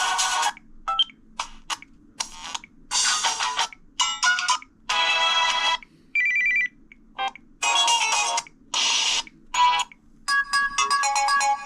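Samsung Vibrant alarm tones previewed one after another through the phone's speaker. About a dozen short snippets of melody and beeps, each cut off abruptly within about a second, while the list is tapped through. Near the end one melodic tone keeps playing.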